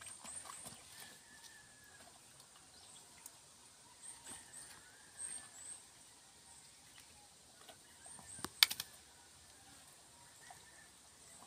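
A dog licking and chewing ripe mango from a person's hand: scattered wet mouth clicks, with a loud burst of smacking clicks about eight and a half seconds in. Small birds chirp high in short runs of three or four, several times.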